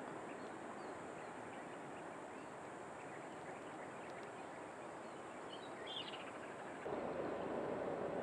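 Outdoor rural ambience: a steady hiss of wind and surroundings, with a few faint bird chirps about six seconds in. The background noise steps up louder about seven seconds in.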